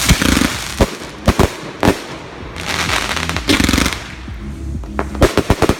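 Backyard consumer fireworks going off: sharp bangs, with a quick run of them near the end, between hissing, crackling bursts.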